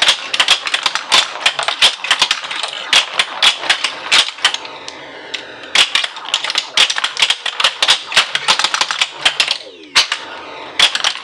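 Williams Black Knight pinball machine in play: a rapid, irregular clatter of the ball, flippers and solenoid-driven playfield mechanisms. The machine's electronic sound effects come in as falling sweeps, one about four seconds in and another near the end.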